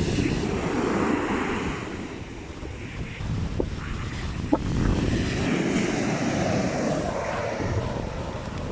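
Strong wind buffeting the microphone over the rush of rough sea surf, swelling and easing in gusts.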